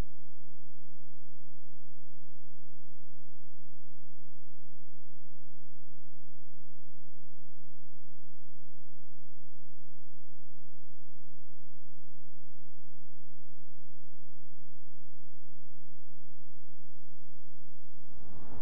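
Steady electrical hum on the VHS audio track: a constant low buzz with weaker overtones and a faint high whine above it. It cuts off near the end as a hiss comes in.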